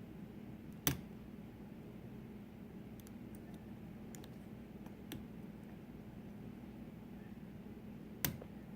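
Sharp clicks of lock picks working the pins of a pin-tumbler lock: two louder clicks, about a second in and near the end, with a few faint ticks between, over a faint steady hum.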